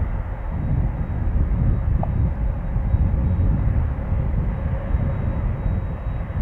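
Boeing 767 jet engines running at low taxi power while the airliner rolls forward, a steady low rumble.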